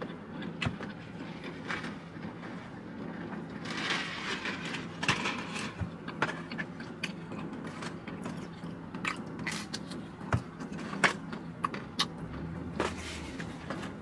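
Chewing crispy pizza up close, with scattered sharp clicks and mouth smacks and the scrape and rustle of a cardboard pizza box, over a steady low hum.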